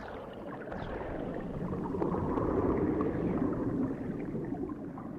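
Underwater bubbles: a dense stream of bubbling and gurgling with many small pops, swelling about two seconds in and easing off near the end.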